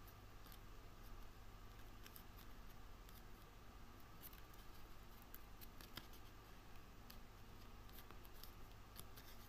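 Faint, scattered crisp clicks of thin card being bent and pressed between fingers, over a steady low hum.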